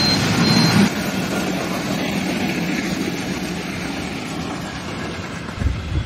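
Broad-gauge passenger train coaches rolling past, a steady rumble of wheels on the track that slowly fades, with a few low thumps near the end.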